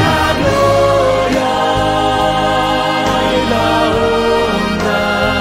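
Mixed choir of men and women singing a Christian song in sustained chords over a steady bass.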